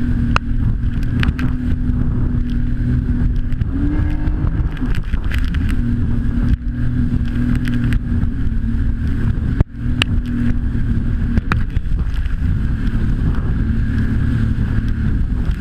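Jet ski engine running at a steady pitch, rising briefly about four seconds in, with scattered sharp knocks over it.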